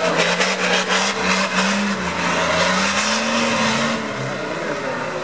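Off-road 4x4's engine revving hard as it climbs a steep muddy slope, its pitch wavering up and down, over a rough, crackling noise.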